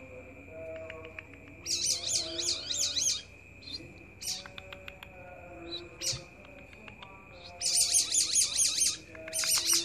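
A songbird singing in three bursts of fast, warbling, up-and-down trills, about two seconds in, near eight seconds and again at the end, with fainter short calls between them.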